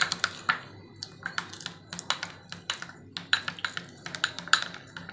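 Silicone spatula stirring cocoa powder and milk into a lump-free paste in a ceramic bowl: a quick, irregular run of clicks and taps against the bowl, about three or four a second.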